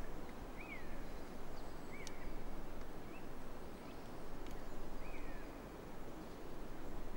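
Outdoor ambience: a steady low rushing noise that swells and fades, with about four short, thin bird chirps, each a quick rising-then-falling note.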